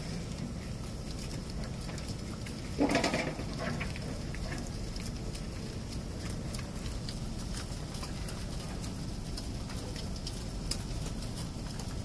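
Low steady road rumble inside a moving car, with scattered light clicks and one short, loud pitched call about three seconds in.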